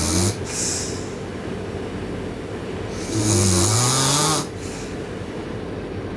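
A sleeping girl snoring loudly: one long snore about three seconds in, a low droning pitch with a hiss of breath over it, after the breathy end of the previous snore at the start.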